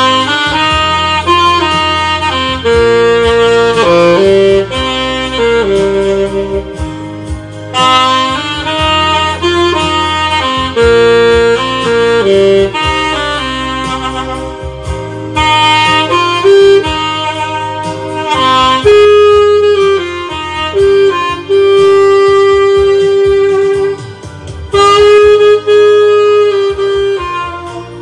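Saxophone playing a slow, jazzy melody of long held notes and short runs over a low sustained accompaniment.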